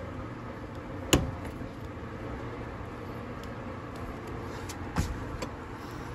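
Plastic electrical connectors on a fuel pump module's top plate clicking as they are handled: two sharp clicks about four seconds apart, the second followed closely by a fainter one, over a steady low background noise.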